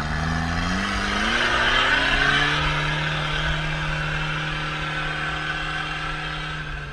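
Off-road pickup's engine under load climbing a muddy slope: the revs rise in several steps over the first couple of seconds, then hold steady at high revs.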